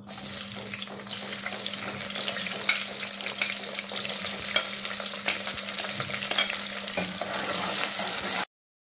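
Sliced onions sizzling and crackling in hot oil in an aluminium pot as they are stirred with a spoon, a steady low hum underneath for most of it. The sound cuts off suddenly near the end.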